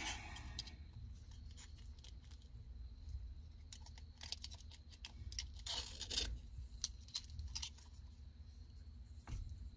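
Hook-and-loop (Velcro) nylon straps of a baby car-monitor camera mount being threaded through the plastic bracket and handled: scattered short scratchy rips and rustles a second or two apart.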